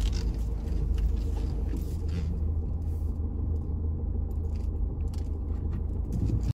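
Low, steady rumble of a car heard from inside the cabin while it is being parked.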